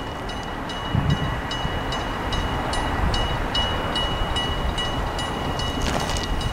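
Gakunan Railway electric train running, a low rumble that grows about a second in. Over it a high ringing tone pulses about twice a second.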